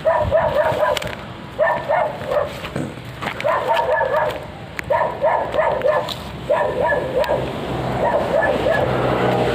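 An animal calling in repeated runs of short, arching pitched notes, about four or five a second, with brief pauses between the runs.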